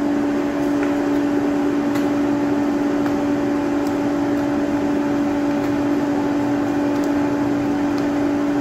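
Electric air blower of a coal-fired smithy forge furnace running steadily, a constant hum over a rush of air, driving the coal fire to full flame. A few faint ticks sound over it.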